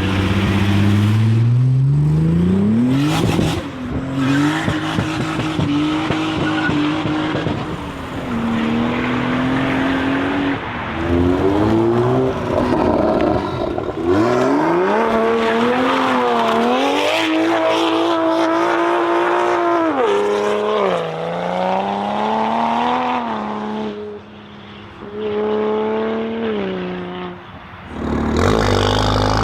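Car engine revving, its pitch climbing and falling again and again with short steady stretches in between.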